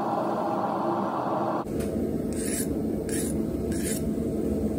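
A file drawn three times across the edge of a freshly quenched knife, each stroke a short scrape: a file test of the steel, which has come out hard. Before the strokes, a steady low noise cuts off abruptly about a second and a half in.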